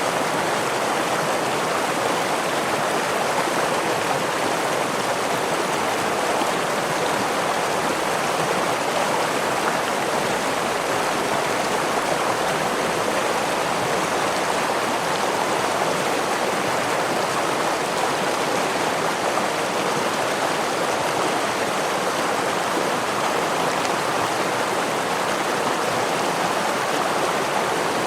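Stream water rushing and splashing over rocks in a steady, unbroken wash of noise, with no single splashes standing out.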